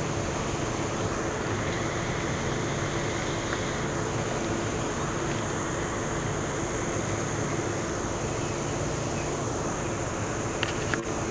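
Steady rumble of an idling vehicle engine mixed with wind noise, with a constant high hiss above it; a couple of faint clicks near the end.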